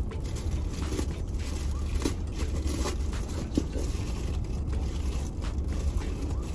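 Plastic packaging being handled and opened by hand, with scattered crinkles, scrapes and small clicks, over a steady low hum.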